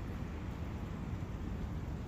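Steady forest ambience of wind and a flowing brook: an even, mostly low hiss with no distinct events.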